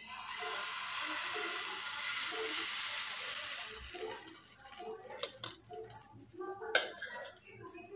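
Rice batter sizzling as it is poured onto a hot pan, a strong hiss that builds over the first couple of seconds and then dies away about four seconds in. A few sharp clicks follow near the end.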